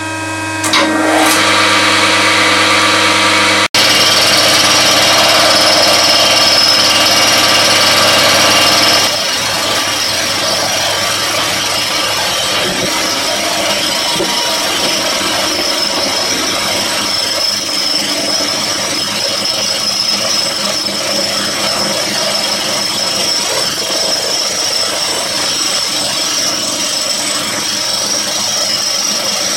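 Vertical milling machine running, a steady motor and spindle hum with a whine. From about nine seconds in, the milling cutter is machining a metal block under coolant: a steady harsh cutting noise with a high whine.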